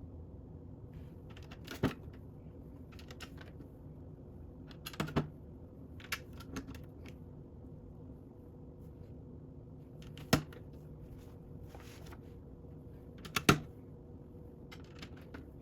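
Plastic Lego bricks clicking and clattering as they are picked up, handled and pressed onto the model, in scattered single clicks and short clusters, over a faint steady hum.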